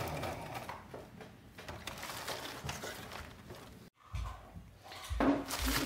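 Cuben fiber fabric being handled, giving an irregular crinkly rustle. There is a brief break about four seconds in, then a few soft thumps and more rustling.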